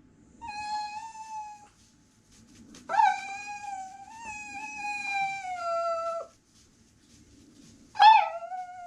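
Miniature dachshund howling in three drawn-out calls: a short steady one near the start, a long one of about three seconds that slowly sinks in pitch, and a third near the end that leaps up and falls back to a held tone.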